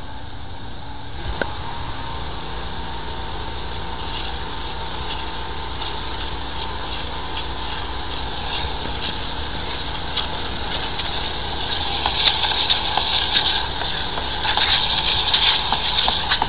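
High-pressure sewer water jet spraying: a steady hiss that builds and is loudest from about twelve seconds in, over a steady low hum.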